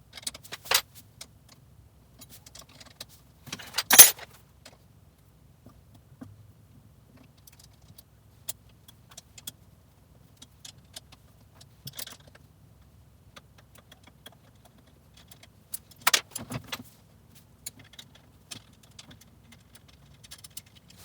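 Scattered metallic clinks and taps of hand tools and exercise-bike parts being handled during assembly, with a sharp knock about four seconds in and another about sixteen seconds in.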